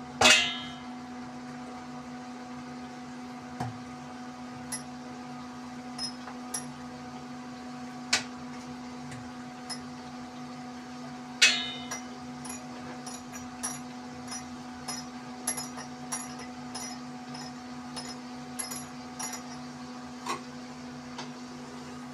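Rolling out puri dough with a rolling pin on a wooden board: a few sharp knocks, then a run of light clicks and clinks about twice a second, over a steady low hum.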